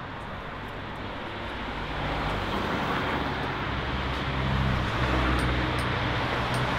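Street traffic noise with a motor vehicle's engine hum that grows louder about two seconds in and stays up.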